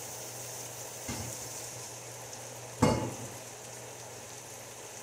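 Chicken strips, peppers and onions sizzling steadily in a frying pan on the stove. A faint knock comes about a second in, and a louder sharp knock near the middle.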